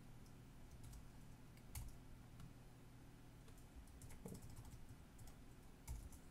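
Faint, sparse keystrokes on a computer keyboard: a few scattered clicks about a second apart over a low steady hum.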